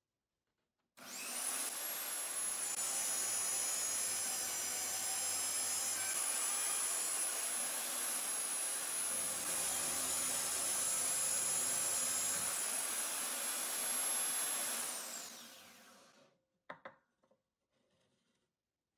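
Electric drill in a drill stand spinning up about a second in and running steadily with a high whine while a twist bit bores into the edge of a laminated plywood part, then winding down near the end, followed by a few light clicks.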